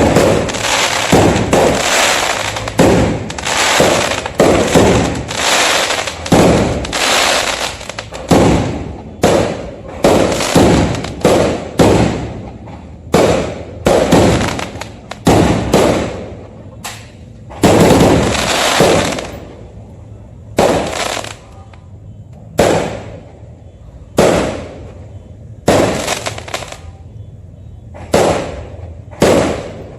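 Fireworks bursting one after another, each a sharp bang that trails off. The bangs come about once a second at first and thin out to one every two seconds or so in the second half.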